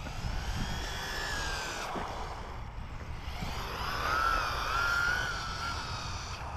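Electric motor whine of an MJX Hyper Go 1/14-scale RC rally car, gliding up and down in pitch with the throttle and loudest about four to five seconds in, over a low rumble.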